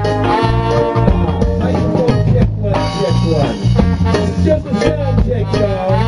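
A live band playing an upbeat song through the stage PA: electric guitar over a steady bass line and drums, at full volume.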